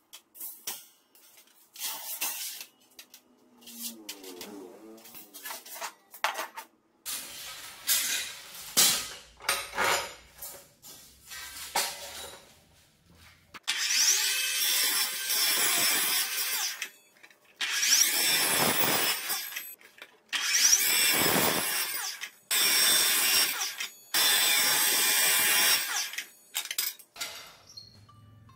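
Dekton metal cut-off saw running and cutting stainless-steel tube in a run of cuts, each several seconds long with short pauses between, in the second half. Before that, stainless grill grates clank as they are handled and stacked.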